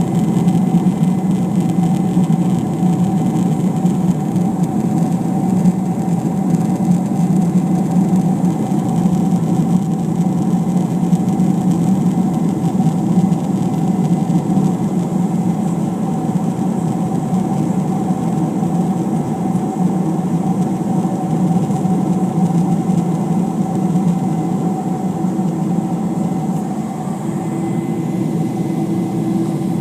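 Jet airliner engines and airflow heard from inside the passenger cabin during the climb after takeoff: a steady, even drone with fixed hums. Another hum joins near the end.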